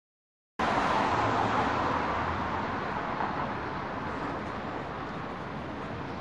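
Street traffic noise cutting in suddenly after dead silence about half a second in, loudest at first and then easing to a steady lower level.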